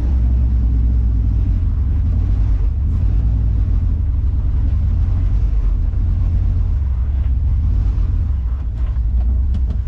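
Steady low rumble of a Volkswagen Kombi camper van driving slowly, heard from inside the cab.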